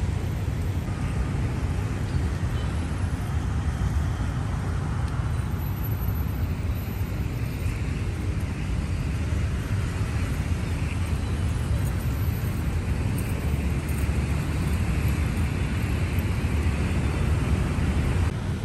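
Steady low rumble of city road traffic, an even noise with no distinct events standing out.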